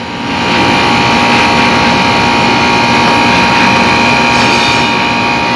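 Air-conditioner outdoor unit starting up within the first half second, its contactor nudged in by hand, then the compressor and condenser fan motor running steadily with a constant hum while the refrigerant charge goes in.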